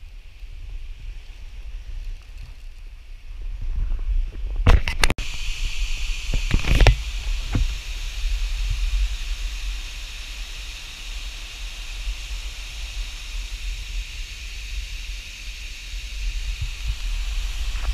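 Wind rumbling on the microphone, then from about five seconds in the steady rush of a waterfall under the wind noise. A few sharp knocks around five and seven seconds in.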